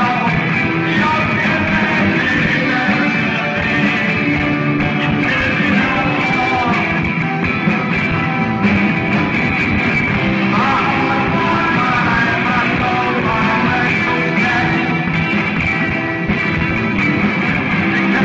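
Live rock band playing loudly: electric bass and drum kit driving a steady beat.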